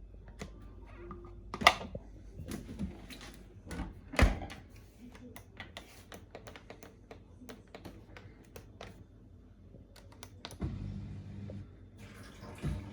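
Irregular clatter of hard clicks and knocks as plastic buckets and dishwasher parts are handled, with two louder thunks about two and four seconds in. About eleven seconds in, a steady low hum sets in.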